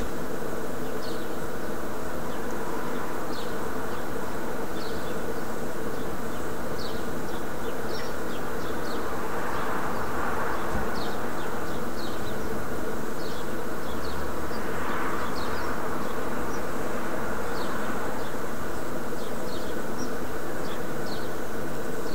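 Steady buzzing hum with short high chirps scattered through it, and two brief swells of noise about ten and fifteen seconds in.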